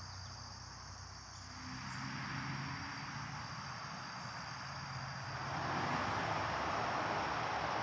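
Outdoor ambience: a steady high-pitched insect drone, joined by a low hum and rushing noise that swells about two seconds in and grows louder again about five seconds in.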